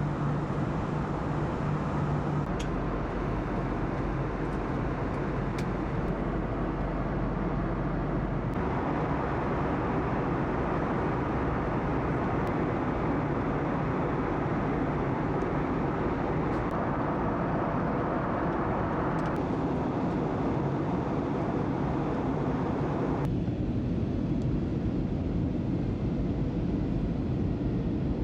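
Steady vehicle running noise, a continuous rushing hum, that changes abruptly in tone three times, about 8, 19 and 23 seconds in.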